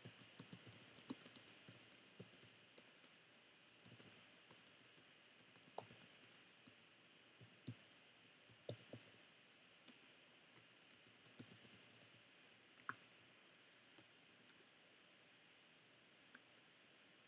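Faint, irregular clicks of a computer keyboard and mouse over a low steady hiss. The clicks come in a quick run in the first few seconds, then scattered and sparser.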